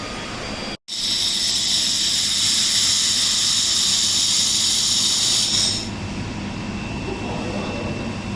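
Mini laser welding machine running with a steady high hiss that starts after a brief break about a second in and stops near six seconds, leaving a quieter hum with a faint high whine.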